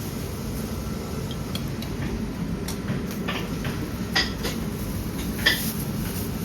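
Dishes and utensils clinking a few times over a steady low background din, the sharpest clink about five and a half seconds in.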